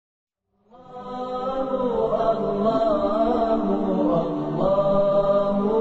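Vocal chant intro: long held sung notes that slide slowly in pitch, fading in after a moment of silence.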